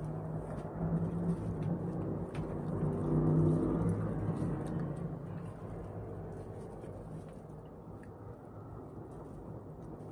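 A low, engine-like hum that swells to its loudest about three seconds in and then slowly fades, with a few faint clicks from handling food on the plate.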